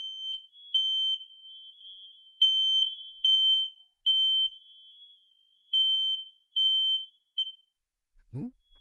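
Smoke detector sounding its alarm during a test: a high-pitched beep in groups of three with a short pause between groups, the standard evacuation pattern. It stops near the end.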